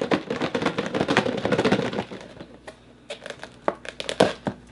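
Crinkling and clicking of a plastic food container and sauce-coated chicken wings being handled. It is busy for about the first two seconds, then drops to a few scattered clicks.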